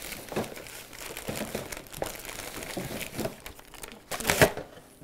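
Paper packets crinkling and rustling as a handful of them is shuffled and slid upright into a plastic bin, in irregular bursts, the loudest rustle about four and a half seconds in.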